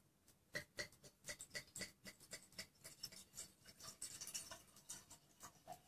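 Wine being poured from a bottle into a wine glass: a quiet, irregular run of glugs and splashes from the bottle neck, starting about half a second in.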